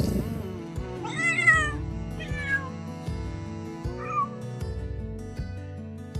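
Cat meowing three times, the first call the loudest and the others shorter and fainter, over background music.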